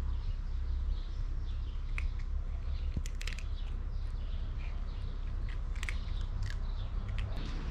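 Cats crunching dry kibble off paving stones, with scattered short high chirps of small birds over a steady low rumble.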